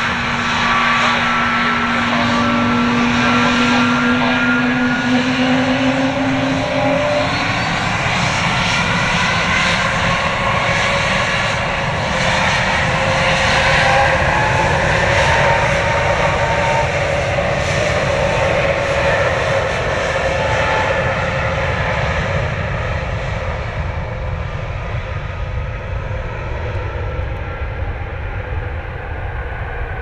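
Jet airliner engines running loud, with several whining tones that slowly shift in pitch over a steady rush. A low hum drops out about seven seconds in, and the sound eases off toward the end.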